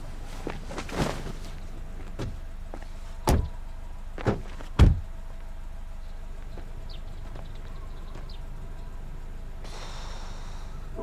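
Car door being handled and shut: a few knocks and thumps, the two loudest about three and five seconds in.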